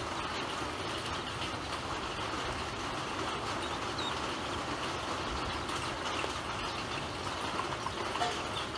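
Ducklings pecking grain off the floor of a plastic basin: a steady, dense clatter of bills tapping on plastic, with a few faint peeps.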